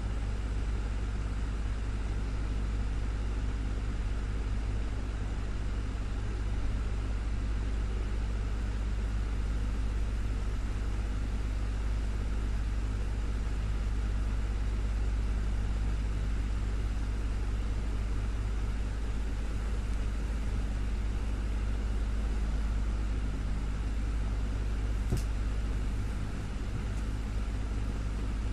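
Desktop electric fan running steadily: a constant low motor hum under an even rush of air. There is one faint click near the end.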